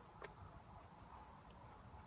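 Near silence: faint low background rumble, with one soft tick about a quarter second in.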